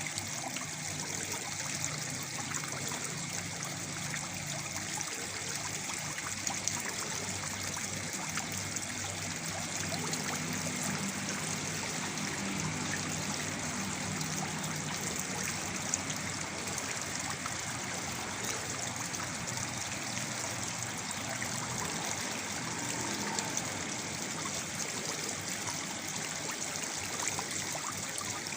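Small waterfall splashing and trickling steadily, water running without a break.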